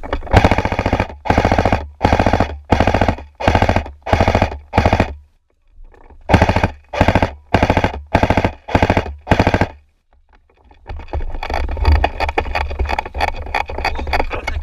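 Airsoft electric rifle firing short full-auto bursts in quick succession, each a brief buzzing rattle, about seven in a row, a pause, then five more. Near the end a quieter, continuous rattling follows.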